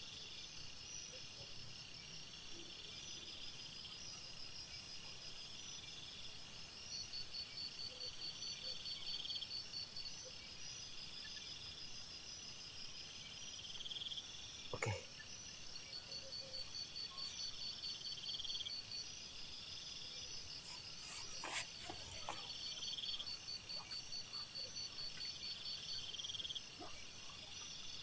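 Chorus of night insects, cricket-like, trilling in high pulsed trains that start and stop every few seconds. A single sharp knock sounds about halfway through, and a short cluster of clicks follows a few seconds later.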